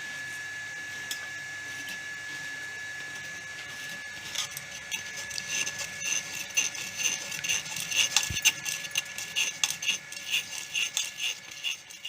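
Metal spoon scraping and rubbing tamarind pulp against a metal sieve, starting about four seconds in as a quick, irregular run of scrapes and clicks.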